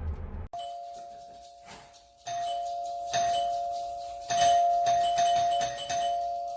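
Newhouse Hardware CHM3D door chime ringing: two tones sound together and are struck again about five times, each strike ringing on and fading before the next. The ringing cuts off suddenly at the end.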